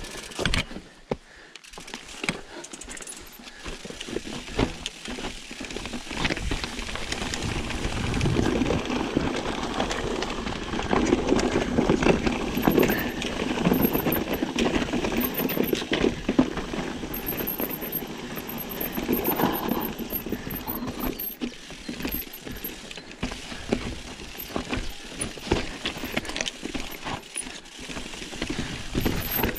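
Mountain bike riding over a rough trail: tyre noise on dirt and stones with rapid clicking and rattling from the bike. It grows louder a few seconds in.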